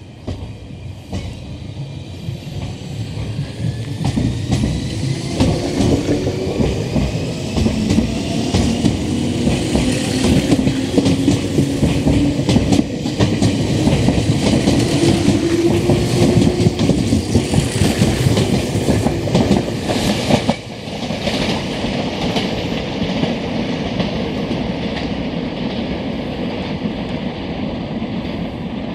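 Red Meitetsu commuter electric train pulling away from the platform and accelerating past, its traction motors whining up in pitch while the wheels clatter over rail joints. About two-thirds through, the sound cuts abruptly to a quieter, steady rumble of another train further off.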